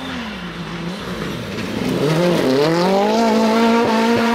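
Rally car on a gravel stage: its engine note falls and wavers as it slows for the bend, then climbs steeply about two and a half seconds in and holds high at full throttle as it powers away over the gravel.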